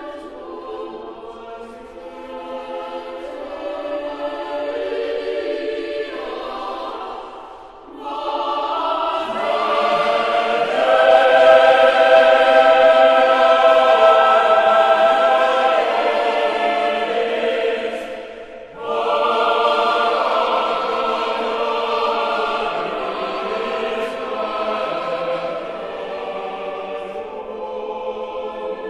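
A choir singing slow sacred music in long held notes. The sound dips briefly twice, about a quarter of the way in and again about two-thirds in.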